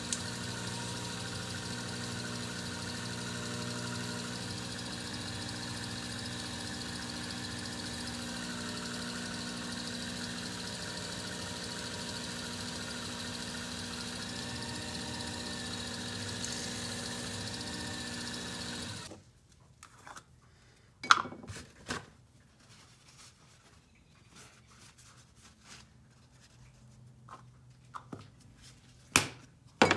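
Cue lathe motor running with a steady hum, shutting off abruptly about two-thirds of the way through. After it stops come a few sharp clicks and knocks, two of them loud.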